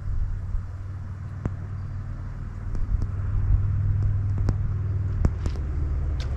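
Steady low rumble of a car on the move, engine and road noise, which grows louder about three seconds in as it picks up speed, with a few faint clicks.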